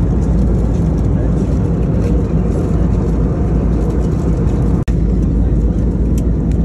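Steady cabin noise of an Airbus A320neo in flight: a constant low rumble of engines and airflow, cut off for an instant about five seconds in.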